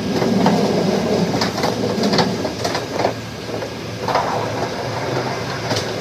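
Passenger train running along the track, a steady rumble with irregular clacks and knocks from the wheels and coach.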